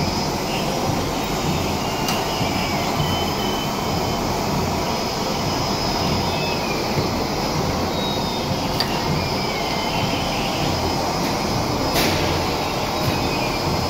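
Machinery of a sugar-box forming and packing line running: a steady, dense mechanical din of chain conveyors and box-handling mechanisms, with a few sharp clicks and faint short squeaks every second or two.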